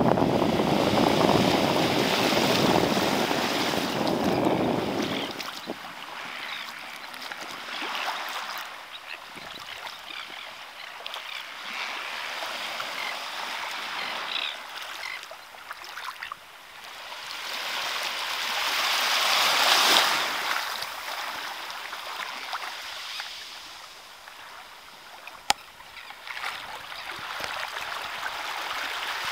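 Small waves lapping and washing on a sandy shore, swelling into one louder wash about twenty seconds in. Wind buffets the microphone for the first few seconds, and a single sharp click comes near the end.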